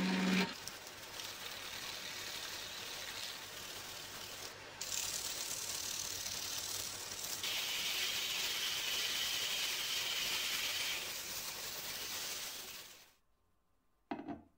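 A steady hiss that gets louder about five seconds in and cuts off sharply about thirteen seconds in, followed by a short knock just before the end.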